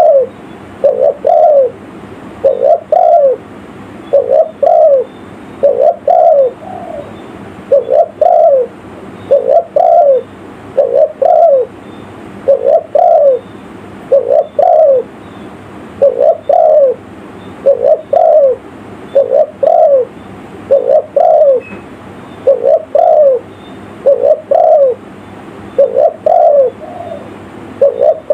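Spotted dove (tekukur) cooing over and over: a loud two- or three-note coo phrase, repeated at an even pace about every two seconds.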